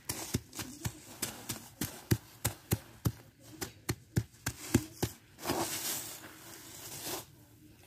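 Small hammer pounding caked salt in a woven plastic sack to break up the lumps, about three dull knocks a second. Near the end the blows stop and hands rub and crumble the loosened salt with a gritty rustle.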